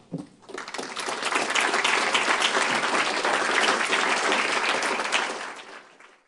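Audience applauding. It swells over the first second, holds steady, then fades away near the end.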